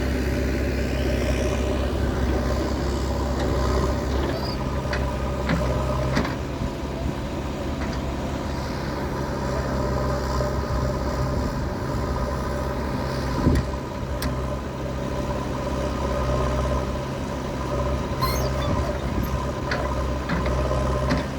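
JCB 3DX backhoe loader's diesel engine running steadily under work, with a few short sharp knocks scattered through, the loudest about halfway.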